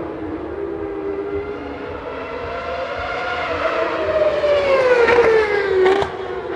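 Formula 1 car's 2.4-litre V8 engine screaming at high revs, its note falling steadily and getting louder as the car slows for Turn 1, with sharp cracks near the end as it changes down.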